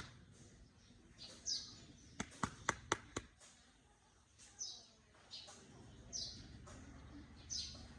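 Common myna calling with short, high, downward-sweeping whistled notes every second or so. A quick run of five sharp clicks comes a little over two seconds in.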